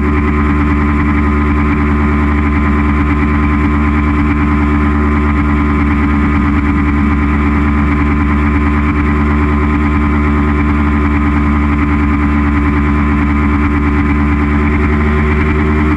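2017 Aprilia Tuono V4 1100's V4 engine running at cruising speed, heard from the rider's seat. It holds one steady engine note with no revving, mixed with a steady rush of noise.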